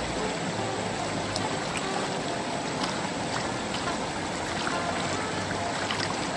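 Water sloshing and splashing as hands stir and swirl sand and gravel in a wooden gold pan held in shallow river water, with scattered small clicks.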